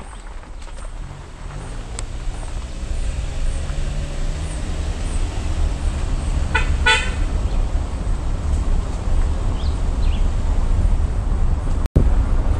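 Car driving, with a steady low engine and road rumble and the engine note rising slightly during the first few seconds. A short horn toot, broken into quick pulses, sounds about seven seconds in. The sound drops out for an instant near the end.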